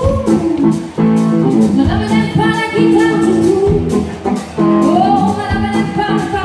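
Live country band playing: a woman singing the melody over electric guitar, bass and drums, with a steady beat.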